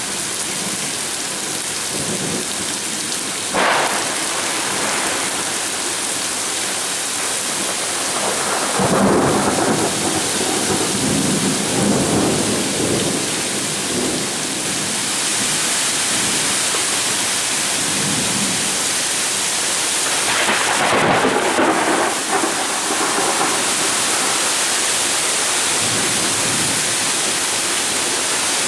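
Heavy rain pouring steadily during a thunderstorm, with thunder: a short sharp crack a few seconds in, then long rolling rumbles about nine seconds in and again around twenty seconds in.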